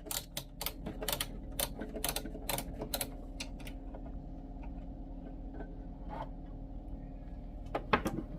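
Sharp clicks and taps of parts being handled on a Singer Heavy Duty sewing machine, about two a second for the first few seconds, then a few scattered ones and a louder cluster near the end, over a steady low hum.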